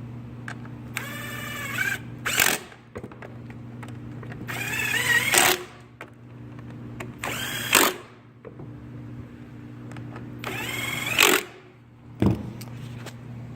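Power drill-driver run four times in short bursts, each a rising whine that stops abruptly as a cover bolt is driven home, over a steady low hum.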